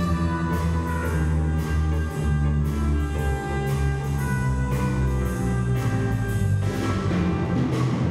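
Live school orchestra with strings, winds and drum kit playing a jazzy number, sustained notes under repeated drum and cymbal strokes.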